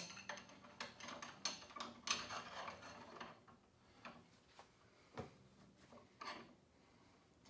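Aluminium hi-hat stand tube and rod being handled and fitted together: metal rubbing and scraping with light clicks, busiest in the first three seconds, then a few single knocks.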